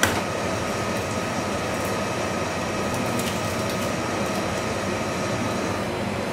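Steady mechanical hum with a faint steady whine that drops out near the end.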